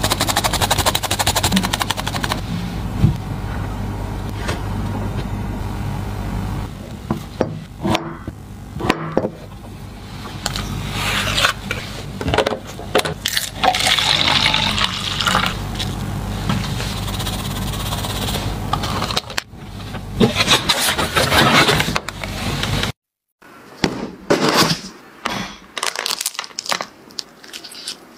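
Close-up food-preparation handling sounds: scrapes, taps and clicks over a low steady hum, with liquid poured into a plastic cup around the middle. The sound cuts out for a moment near the end, then more short taps and scrapes follow.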